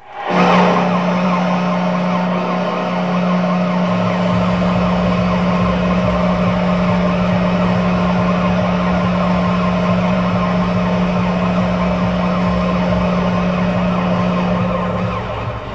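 Washington Capitals goal horn sounding one long, steady low note for about fifteen seconds over a noisy crowd, then cutting off near the end. About four seconds in, the thumping beat of the goal song comes in underneath.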